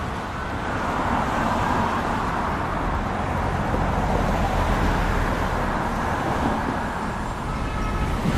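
City street traffic ambience: a steady wash of passing cars and engines.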